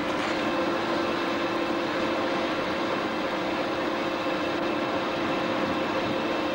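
Diesel locomotive engine idling steadily, a constant hum with a couple of steady tones over a dense mechanical noise.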